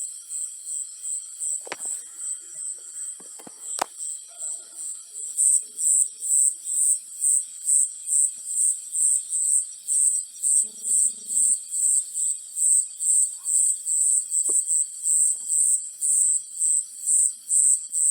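Cricket chirping in a steady, even rhythm, about two to three high-pitched chirps a second, growing louder about five seconds in.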